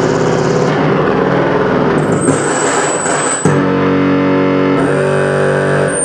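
Loud distorted noise music: a dense wash of droning tones that changes abruptly about halfway through to a steadier stack of held tones, with a thin high whine over parts of it.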